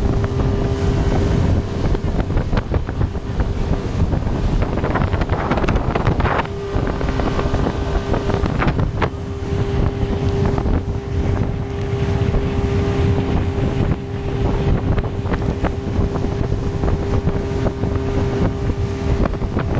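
Outboard motor of a rigid inflatable boat running steadily at speed, a constant drone under heavy wind buffeting on the microphone. Water rushes and slaps against the hull.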